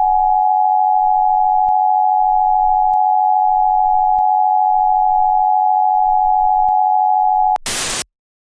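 A single steady electronic tone at one pitch, a broadcast-style test tone. Near the end it cuts to a brief burst of harsh static.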